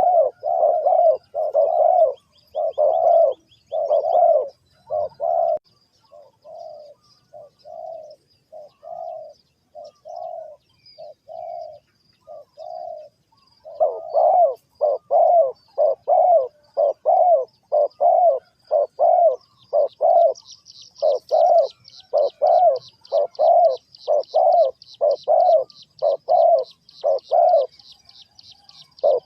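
Spotted dove cooing: a long run of short, low coos, about two a second, fainter for several seconds in the middle, then loud again. A high, fast trill joins in past the middle.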